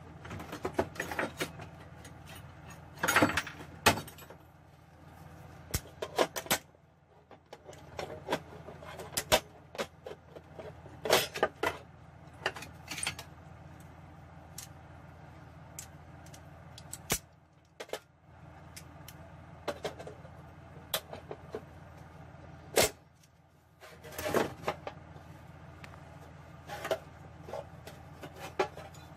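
A metal speed square being set down, slid and clacked against a sheet-steel computer case panel while a line is marked on it: scattered sharp metal-on-metal knocks and clicks, with short stretches of scraping, over a low steady hum.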